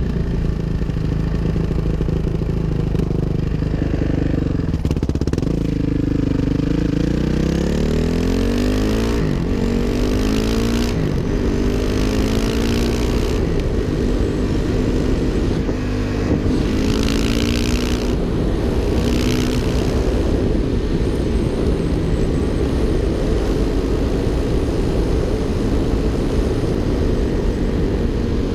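Suzuki RM-Z 450 single-cylinder four-stroke dirt bike engine under throttle, pitch climbing steeply about five seconds in as it accelerates, then running at speed with the pitch stepping up and down through throttle changes and shifts. Rushes of higher hiss come and go, wind on the microphone at speed.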